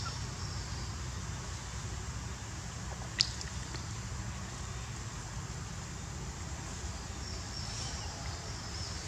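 Outdoor ambience: a steady low rumble with a faint high hiss, and one sharp click about three seconds in.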